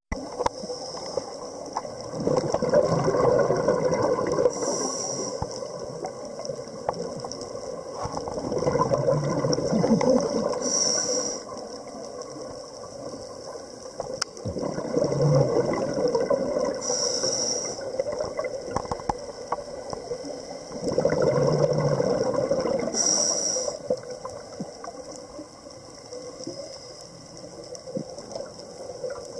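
Scuba diver breathing through a regulator, a steady cycle about every six seconds: a short hiss with each inhale, four in all, and a bubbly gurgle of exhaust bubbles between them.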